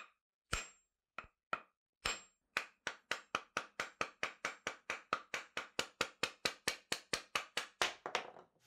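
Sharp wooden knocks of a hammer tapping the wooden handle off a yanagiba's tang. A few scattered taps, then a steady run of about three to four a second until the handle comes free near the end.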